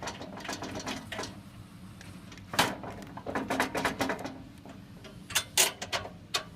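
Metal parts of a go-kart frame being handled and fitted with bolts: scattered knocks and clinks, the loudest about two and a half seconds in, then a cluster of light clinks and two quick clicks near the end.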